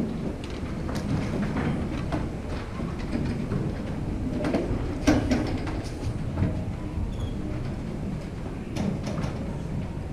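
A congregation sitting down in wooden church pews: a continuous rumble of shuffling and rustling, with scattered knocks and creaks from the pews. The sharpest knock comes about five seconds in.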